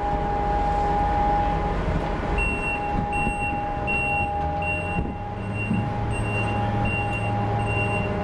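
Ship's deck crane hoisting a bundle of logs: its machinery gives a steady whine over a low engine rumble that grows heavier as the load rises. From about two seconds in, a warning beeper sounds, about one beep every half second or so.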